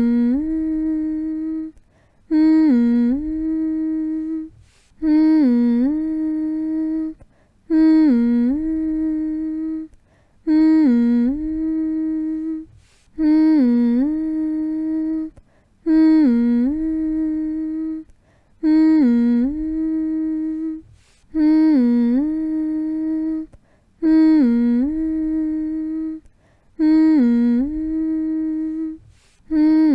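A person humming the same short phrase over and over, about every two and a half seconds: each hum holds one note, dips briefly lower near its start and comes back up, then stops for a short breath before the next.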